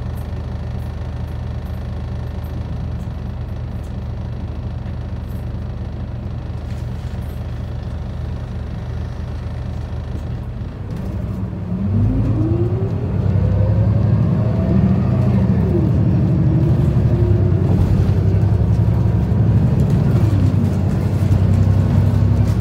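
Isuzu Erga city bus's inline-six turbo diesel heard from inside the cabin: a steady idle for about eleven seconds, then the engine revs up as the bus pulls away. Its pitch rises and drops back twice as it shifts up through the gears.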